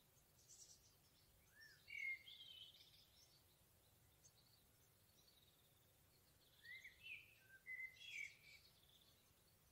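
Forest songbirds singing faintly: short phrases of quick chirps and gliding whistles, one flurry about two seconds in and another about seven to eight seconds in, over a faint steady background hiss.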